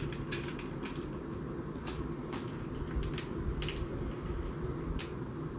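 Small, irregular clicks and taps of an Allen key, a small screw and the grip parts as a screw is fitted and turned into a pistol-grip mount, over a steady low background hum.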